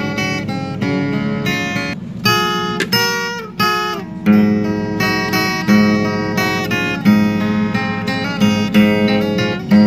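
Background music: an acoustic guitar plays, with plucked and strummed notes or chords that start sharply about once a second and ring out.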